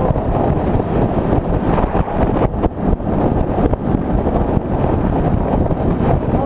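Motorcycle riding at highway speed, heard mostly as heavy, gusting wind buffeting on the microphone, with the bike's engine and road noise underneath.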